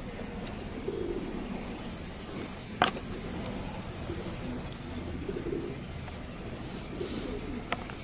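Pigeons cooing in low murmurs several times, with one sharp click about three seconds in.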